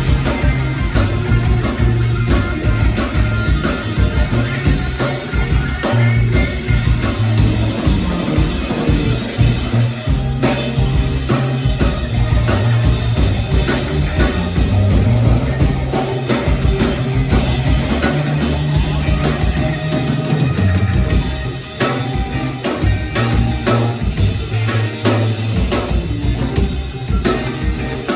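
A live rock band playing through a sound check: drum kit, bass and guitar.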